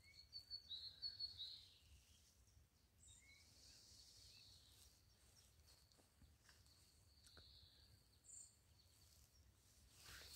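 Faint songbird chirping and warbling over quiet outdoor ambience, loudest in the first two seconds, with a few shorter calls later on.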